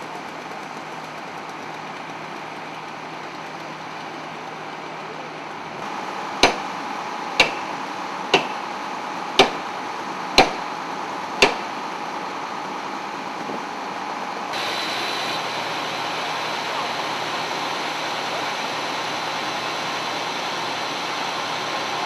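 A vehicle engine running steadily, with six sharp knocks about a second apart partway through. The running noise steps up and grows louder about two-thirds of the way in.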